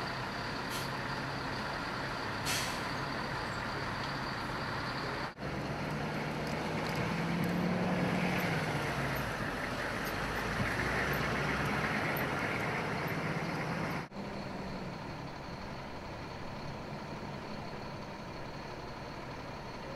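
Humvee diesel engines running. In the middle stretch one Humvee drives past, louder, its engine rising and then falling in pitch. The sound breaks off abruptly twice.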